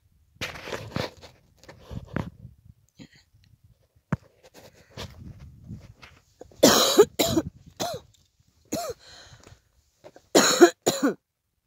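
A person coughing: two fits of about three harsh coughs each, one around the middle and one near the end, after some softer scuffing sounds.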